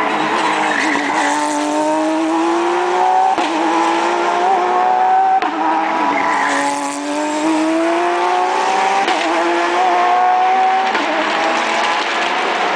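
Race car engines running hard at full throttle, the pitch climbing steadily, dropping sharply at each upshift and climbing again several times.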